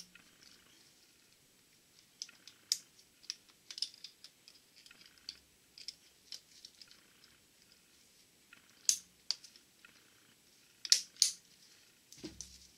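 Snap ring pliers and a selective-fit snap ring clicking against a Borg-Warner T-10 transmission mainshaft as the ring is worked into its groove above the third-speed gear: irregular sharp metal clicks, a few louder ones, with a dull knock near the end.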